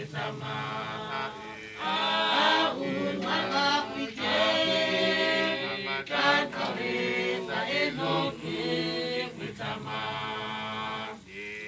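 Mourners singing together unaccompanied, many voices holding long notes in phrases of about two seconds with short breaths between.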